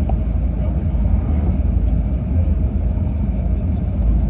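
E6 series Shinkansen train running at speed, heard from inside the passenger cabin as a steady low rumble.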